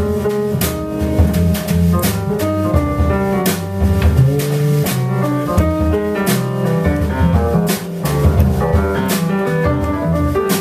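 Jazz piano, double bass and drum kit playing an instrumental passage with no vocals, the bass moving under the piano and cymbal strikes throughout.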